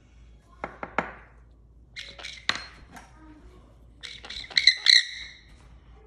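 A lightly sedated Nanday conure gives several short, harsh squawks, the loudest pair near the end. These are the occasional calls of a drowsy, numbed bird, which its keepers say is not in pain.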